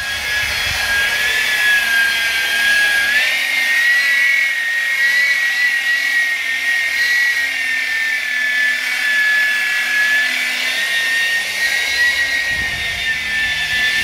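Electric rotary polisher with a buffing pad polishing a car's painted fender, its motor giving a steady high whine that steps up slightly in pitch about three seconds in.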